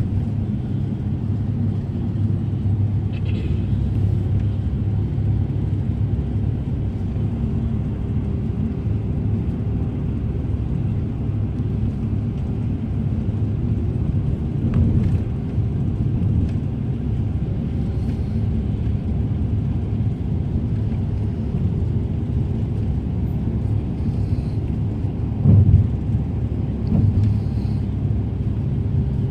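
Steady low rumble of road and engine noise heard from inside a moving vehicle's cabin at highway speed, with a brief louder thump about 25 seconds in.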